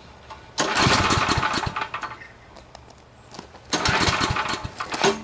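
The 8 hp engine of a Coleman Maxa 4000 ER Plus generator being pull-started twice. Each pull turns it over for about a second and a half, and it does not keep running.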